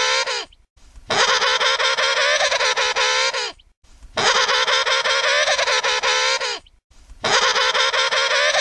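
Emperor penguin trumpeting: a wavering call of about two and a half seconds, each one dipping in pitch at its end. The calls repeat with short gaps, three full calls over the tail of a fourth, all alike in shape.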